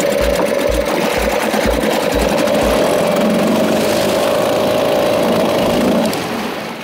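Mariner 3.3 hp two-stroke outboard running in gear in a bin of water, the propeller churning and splashing the water. A low thud comes about twice a second in the first few seconds, and the engine sound cuts off about six seconds in.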